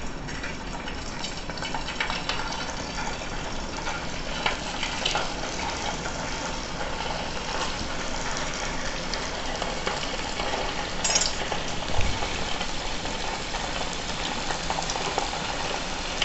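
Steamed whole-wheat momos deep-frying in hot oil in a steel pot: a steady sizzle with scattered crackles as the oil bubbles around them, and one light knock about twelve seconds in.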